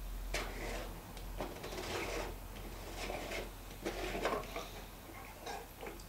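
Plastic drain-pump filter of a washer dryer being twisted and worked loose by hand, in several short, irregular scraping and creaking rubs.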